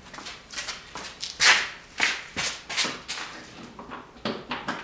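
Plastic trim covers in a Porsche 987 Cayman's front trunk being handled and unfastened by hand: a string of short plastic scrapes, rasps and clicks, the loudest about one and a half seconds in.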